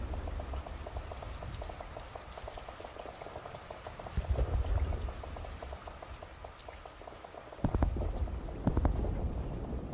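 Steady rain hiss, broken by deep distant booms: one about four seconds in, and two more close together near the end.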